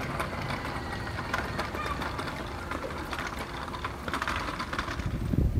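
City street ambience: a steady wash of distant traffic and passers-by, with faint scattered clicks.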